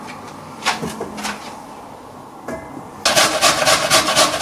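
A few light knocks, then about three seconds in a parsnip starts being grated on a hand grater over a metal bowl: a rhythmic rasping of about four strokes a second.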